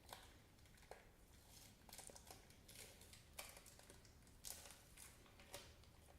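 Faint chewing of a Reese's Fast Break bar (milk chocolate, peanut butter and nougat): soft, scattered clicks and squelches roughly once a second over near silence.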